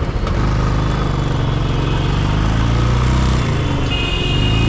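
Royal Enfield Bullet's single-cylinder engine running under way as the motorcycle rides through traffic. The engine note dips briefly about three and a half seconds in, then picks up again.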